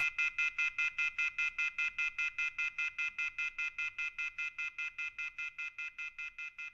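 Rapid electronic telephone beeping, about six or seven short beeps a second, each one a steady high two-tone chirp. The beeping fades gradually.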